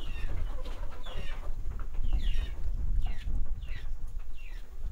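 Birds chirping: a string of short, high calls, each falling in pitch, coming about every half second over a steady low rumble.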